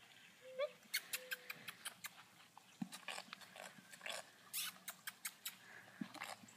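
Horse flapping and smacking its lips, making farting noises with its mouth in several short runs of quick slaps.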